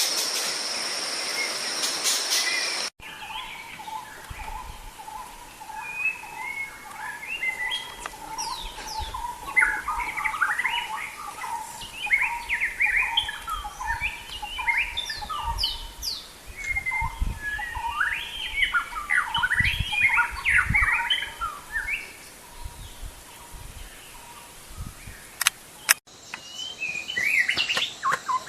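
White-rumped shama (Sumatran murai batu) singing in rapid, varied whistled phrases that rise and fall. About three seconds of loud steady hiss come first and cut off abruptly before the song.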